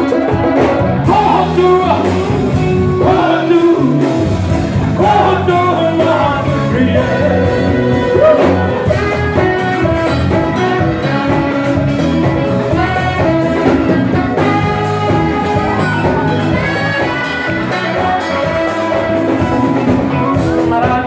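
Live Ethiopian band playing with a male lead singer: electric bass, electric guitar, saxophone and hand drums under a sung melody, loud and continuous.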